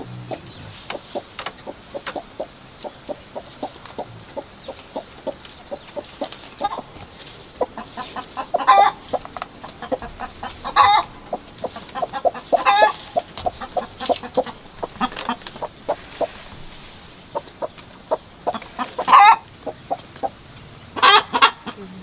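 Domestic hens clucking in a steady run of short calls, with about five louder, drawn-out calls scattered through, the last two close together near the end.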